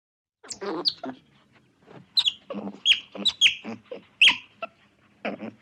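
An animal calling: about a dozen short, sharp calls at an irregular pace, each falling quickly in pitch.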